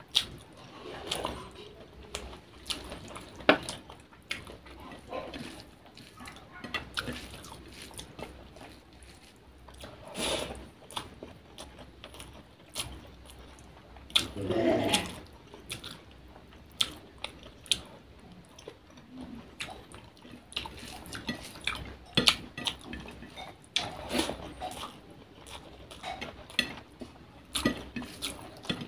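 Close-miked eating: chewing rice and fried hilsa fish eaten by hand, with wet mouth sounds and many irregular sharp lip smacks. There are two louder, longer bursts, about a third of the way in and near the middle.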